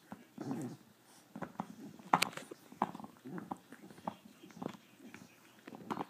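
Dog gnawing on a bone-shaped chew toy: irregular clicks and scrapes of teeth on the toy, with a short throaty sound about half a second in.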